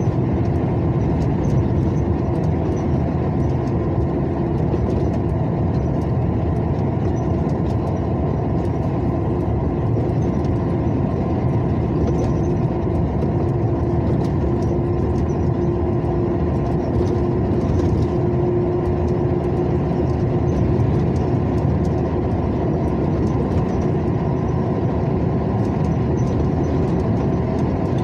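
Steady engine and tyre noise of a vehicle driving along the highway, with a hum that rises slightly in pitch later on.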